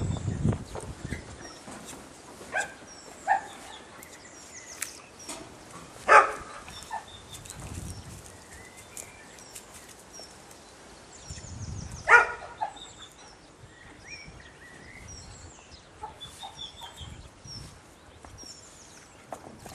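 A black working spaniel barking at a tree in short single barks a few seconds apart, the loudest about two-thirds of the way through. Small birds chirp faintly in the background.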